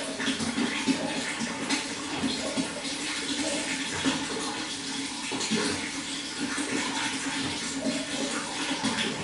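Running water flowing steadily, with many small irregular splashes.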